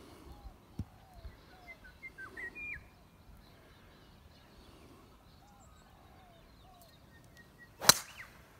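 Birds chirping in the background, then near the end the single sharp crack of a driver striking a golf ball off the tee.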